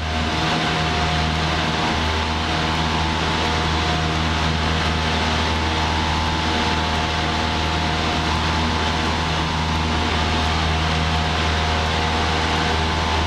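Cessna 172P's Lycoming O-320 four-cylinder engine and propeller at full takeoff power through lift-off and the initial climb, heard inside the cockpit as a steady drone.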